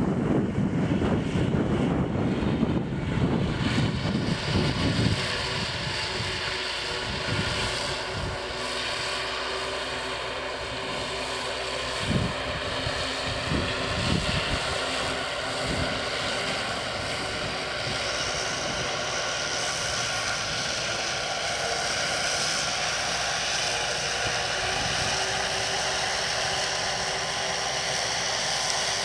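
Kubota M5140 tractor's diesel engine running steadily under load while it drives a CM165 drum mower through standing hay. Wind buffets the microphone for the first few seconds.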